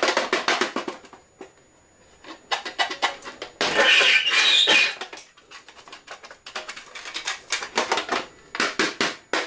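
A metal tin pencil box being handled by hand, with bursts of clicking and rattling. Its loudest stretch comes a little under four seconds in, lasts about a second, and is a denser scraping noise as the box is pushed along the tabletop.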